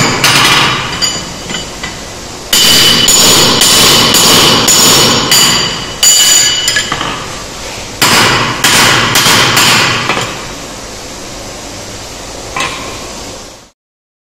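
Blacksmith's hand hammer striking hot steel on an anvil: a run of blows about two to three a second, each with a bright ringing anvil tone, then a pause and a second run. The blows trail off, a last light tap follows, and the sound cuts off just before the end.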